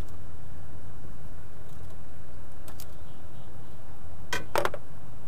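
Sharp plastic clicks and knocks from handling the throttle position sensor's wiring connector on the throttle body: one click at the start, two faint ones near the middle and a louder double click near the end, over a steady low rumble.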